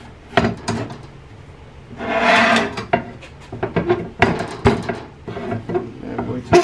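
Steel plates of a belt grinder frame clanking and scraping against clamps and a steel table top as the clamped assembly is moved and squared up: scattered sharp knocks, with a longer metal scrape about two seconds in, the loudest sound.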